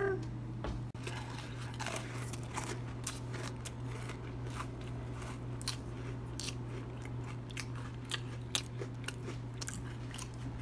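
A person biting and chewing an Oreo cookie close to the microphone: irregular crunches, over a steady low hum.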